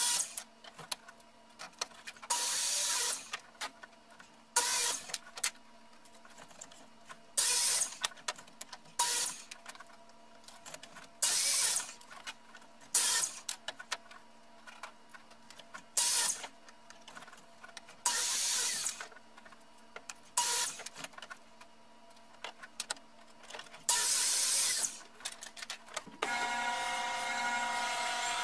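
Compound miter saw making a run of short cuts: about a dozen bursts of blade noise, each about a second long, a second or two apart. Near the end a steady sound with several held tones takes over.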